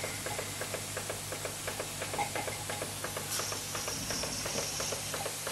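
Jensen 20G model steam engine running and driving its belt-driven toy accessories, with a rapid, even ticking over a steady steam hiss. A higher hiss comes in about three seconds in and lasts a couple of seconds.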